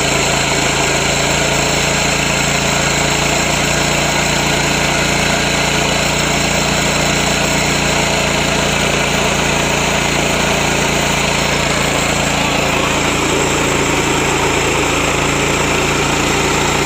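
Small 7 HP gasoline engine of a Yasuka mini rice mill running at a steady, constant speed, driving the milling machine. The sound is loud and unchanging.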